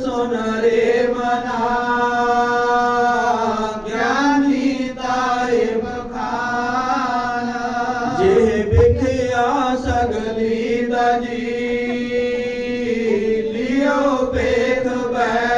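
A voice chanting Sikh Gurbani verses in a slow melody, holding long notes and gliding between them, with brief breaks between phrases.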